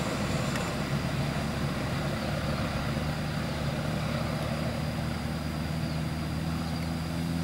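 Steady hum of a drone's propellers hovering, several pitches held constant.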